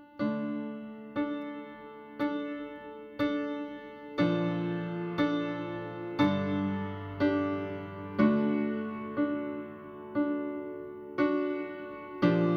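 Slow solo piano music in mono, a note or chord struck about once a second and left to ring and fade.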